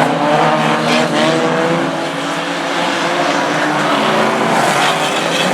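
Banger racing cars' engines running hard around the track, several engines heard at once and rising and falling in pitch as they rev, over steady tyre and track noise.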